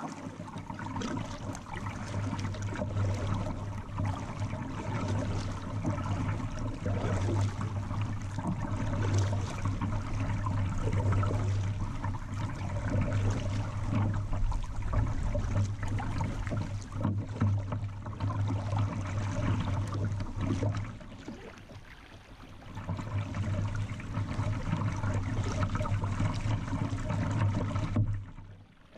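River current rippling and splashing close against a kayak, with a steady low hum underneath. The sound eases off briefly about two-thirds of the way through and again just before the end.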